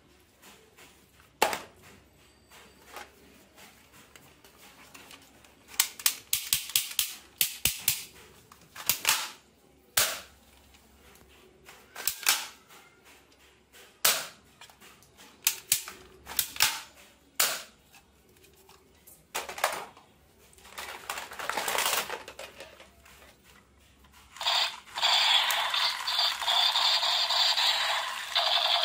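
Hard plastic toy guns being handled and triggered: sharp clicks, some single and some in quick rattling runs, through the first twenty seconds. About twenty-four seconds in, a battery-powered light-up toy pistol starts its electronic firing sound from its small speaker, loud and steady.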